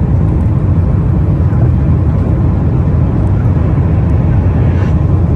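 Boeing 787-8 jet engines at takeoff thrust, heard inside the passenger cabin as a steady, loud, low rumble during liftoff and initial climb.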